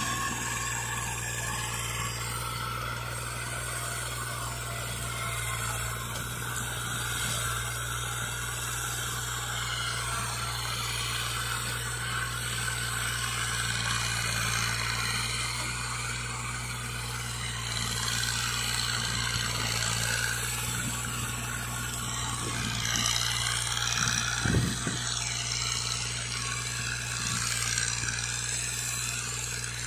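Fiat 480 tractor's three-cylinder diesel engine running steadily under load as it pulls a tine cultivator through the soil, with one short knock about 24 seconds in.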